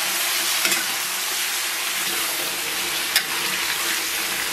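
Pork belly and ribs stir-frying in a wok with a steady sizzle, while a metal spatula turns them and knocks against the wok twice.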